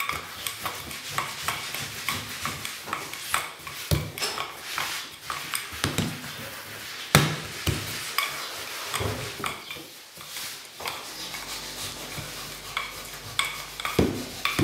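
Wooden rolling pin rolling out bread dough on a wooden tabletop, with irregular knocks and taps as the pin and hands strike the table.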